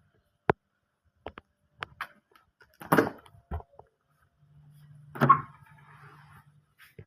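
Scattered sharp clicks and knocks, with two louder clattering bangs about three and five seconds in. A low steady hum comes in around the second bang and lasts about two seconds.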